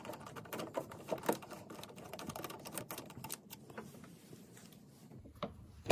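A screwdriver working a door-handle screw loose inside a car door: faint, irregular small clicks and scrapes that thin out after about three and a half seconds.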